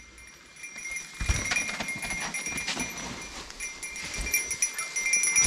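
Mountain bike rolling down a rocky descent: tyres and frame rattling and knocking over rock, with a couple of heavy thumps and a steady high-pitched squeal over it. The noise starts about a second in.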